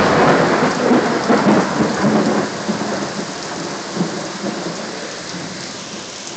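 Heavy rain pouring down while thunder from a close lightning strike starts suddenly and loud, then rumbles on unevenly and slowly fades over several seconds.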